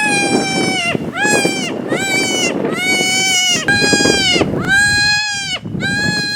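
MFK Double Slash diaphragm predator call blown in a series of long, wailing distress cries, about seven in a row with short breaks between them. Each cry swoops up at the start, holds, and falls off at the end, with a raspy edge underneath. This is the prey-distress sequence used to call in coyotes and bobcats.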